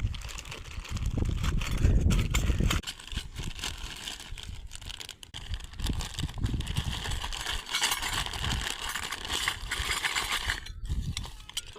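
Hands handling the packaging and small pieces of a miniature metal toy kitchen set: a run of small irregular clicks and knocks with rustling, with heavier bumping in the first few seconds.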